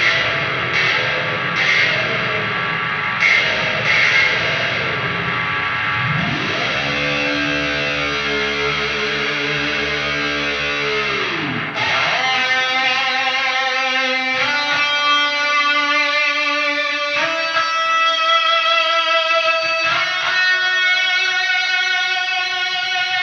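High-gain distorted electric guitar through a Neural DSP amp plugin, with an ISP Decimator G noise gate and Hum Extractor in the chain. It plays a few choppy chords, then a held note whose pitch swoops up about six seconds in and drops back about five seconds later. Then come sustained single lead notes, changing every couple of seconds, with vibrato on the later ones.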